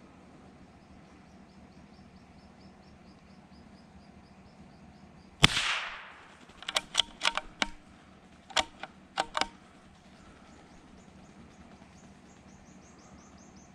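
A single shot from a bolt-action .22 rimfire rifle about five seconds in, with a short echo. It is followed over the next few seconds by a quick series of sharp metallic clicks, the bolt being worked to eject the spent case and chamber the next round.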